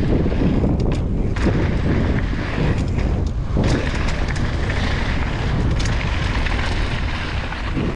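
Wind buffeting an action camera's microphone with a deep rumble during a mountain-bike descent, with tyre noise and several sharp clicks and knocks from the bike going over rough trail.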